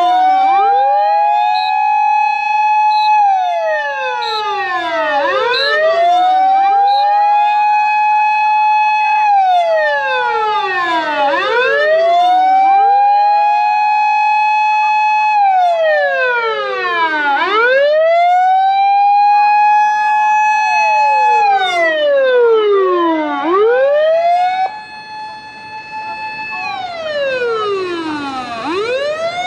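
Several Japanese fire engine sirens wailing together. Each one rises quickly, holds a high note for a few seconds, then slides back down, in staggered cycles of about six seconds. The sound drops in level for a few seconds near the end.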